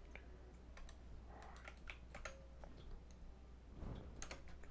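Faint, irregular keystrokes on a computer keyboard, with a quick run of them near the end.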